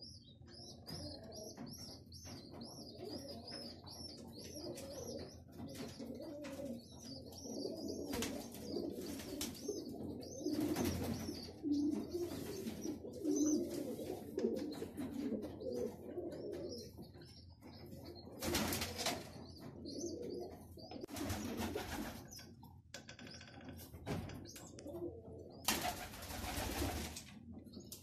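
A flock of domestic Runt (Roman) pigeons cooing together in their loft, a continuous overlapping low warble. A high wavering chirp runs through the first few seconds, and several short rushing noises cut in through the rest.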